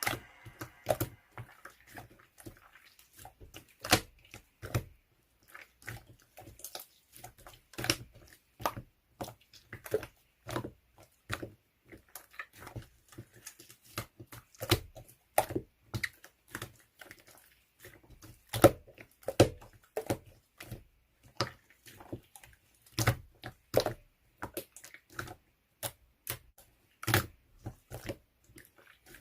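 Slime being squished and pressed by hand, making irregular sticky clicks and pops, a few each second.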